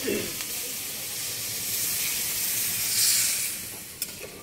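Water poured into a hot karahi of fried-down curry hissing and sizzling over a wood fire, the hiss swelling to its loudest about three seconds in. A few sharp clicks near the end, from a spoon against the pan.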